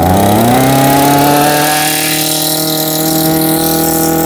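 Maruyama BC208 brush cutter's small 20cc two-stroke engine running just after starting on the pull, its pitch rising over the first second or so and then holding a steady fast idle. It runs smoothly, sounding like new.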